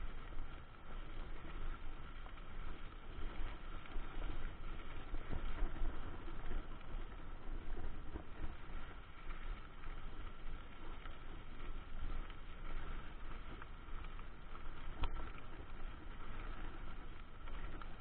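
Mountain bike rolling along a gravel road: steady tyre crunch and frame rattle with a low wind rumble over the microphone, and a single sharp tick about fifteen seconds in.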